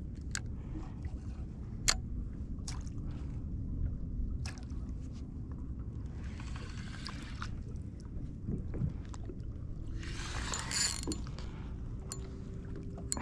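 Water and wind rumbling steadily around a fishing kayak, with scattered light clicks of tackle. Twice, about six and ten seconds in, a spinning reel is cranked briefly as a jig is worked.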